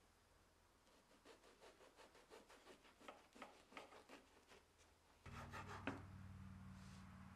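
Knife sawing through a crusty baguette on a wooden cutting board, faint, in short back-and-forth strokes about two or three a second. About five seconds in a low steady hum comes in, with a few sharp taps, the loudest near the end.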